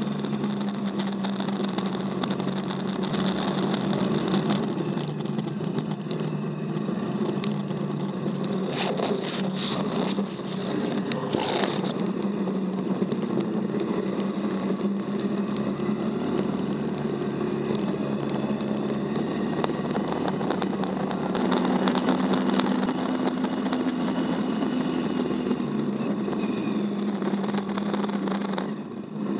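Off-road buggy engine running steadily with a constant drone and the rattle of the buggy over a dirt track. There is a run of knocks and rattles about ten seconds in, and the engine note steps up in pitch for a few seconds past the two-thirds mark.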